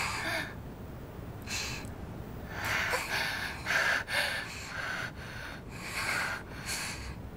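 A person breathing heavily: a run of irregular, noisy breaths and gasps, one every half second to a second.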